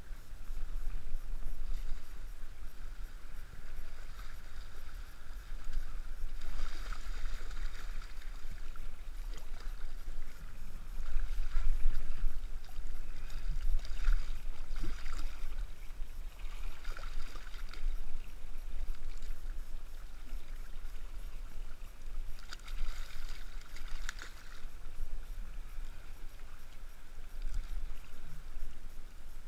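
Surf water sloshing and splashing around a wading angler, in bursts several times as a hooked striped bass thrashes at the surface near him, over a steady low wind rumble on the microphone.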